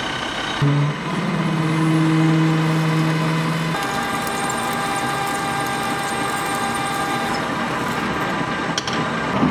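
Metal lathe running with a twist drill boring into a spinning 6061 aluminium bar, the machine's steady whine underneath. A strong low hum comes in about half a second in and gives way after about four seconds to a higher steady tone while the drill cuts.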